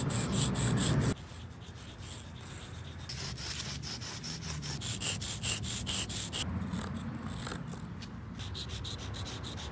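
Sidewalk chalk rubbing and scraping on concrete in many quick repeated strokes.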